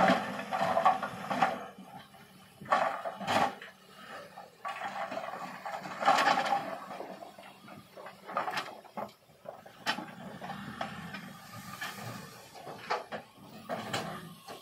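Irregular clattering and knocking of hard objects. The longest bursts of rattling come at the start, about three seconds in and about six seconds in, with single sharp knocks scattered through the rest.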